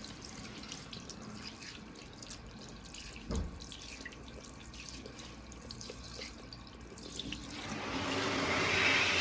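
Tap water running and splashing into a washbasin. About seven and a half seconds in, a Kuaierte K2008 hand dryer starts up, its blower noise swelling and growing louder.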